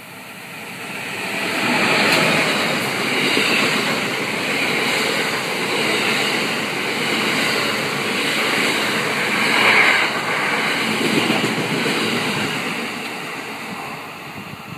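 Amtrak passenger train passing close by: an electric locomotive followed by a string of stainless-steel Amfleet cars, a steady loud noise of wheels on rail that builds over the first two seconds and fades near the end.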